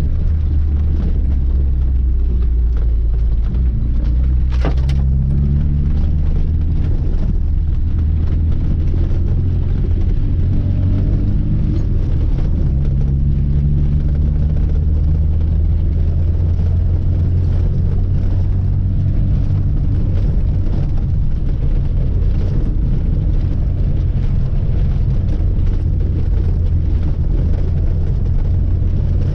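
Lada 2106's four-cylinder petrol engine running under way, with a heavy low rumble and road noise. The engine note rises and falls several times, and there is one sharp click about five seconds in.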